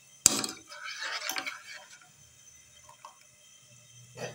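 A metal spoon knocks sharply against a stainless-steel pot about a quarter second in, followed by water sloshing and dripping as it is stirred in the pot.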